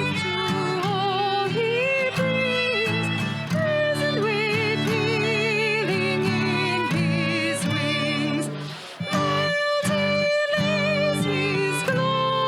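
Live worship music: acoustic guitar chords under a held melody line sung or played with vibrato, with a brief break in the sound about three quarters of the way through.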